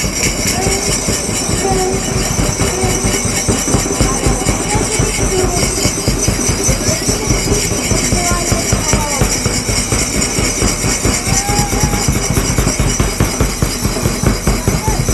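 Loud, uneven rumbling and buffeting of wind on a phone microphone, with faint voices wavering underneath.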